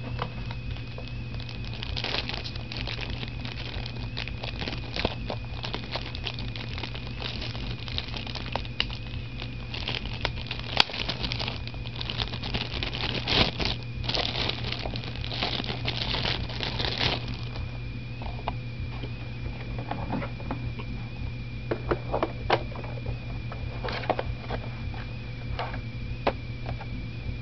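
Irregular clicks and clatter with plastic rustling and crinkling as keyboards and their packaging are handled. The sounds come thickly through the first two thirds and thin out to scattered clicks near the end.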